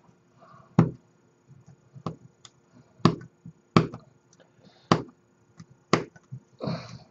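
Plastic model-kit parts being cut from the sprue: about six sharp clicks, roughly one a second, as the plastic gates snap through.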